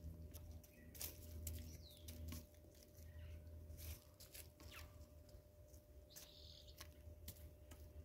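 Helmeted guineafowl pecking at pieces of fruit on a stone slab: a scatter of faint, sharp beak taps. A few brief high chirps from other birds and a low steady hum sit underneath.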